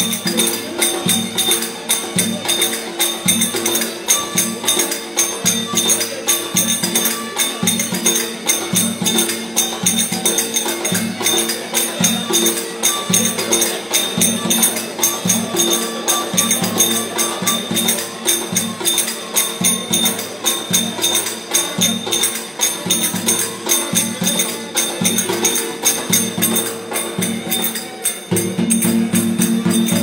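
Live Turkish folk dance music: a davul bass drum beaten in a fast, steady rhythm, with a Black Sea kemençe, a small upright bowed fiddle, playing the tune over it.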